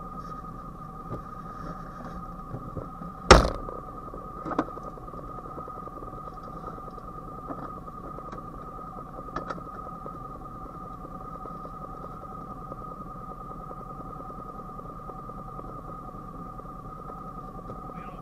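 A steady high-pitched electrical whine over a low hum, with one sharp knock about three seconds in and a few faint clicks after it.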